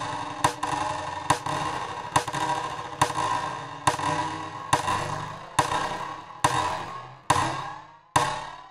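A short, ringing percussive hit repeating a little faster than once a second, played through the Hexaline plugin's stereo delays and chorus so that the ringing tails smear into a continuous wash. In the last few seconds the wash thins out and each hit dies away before the next.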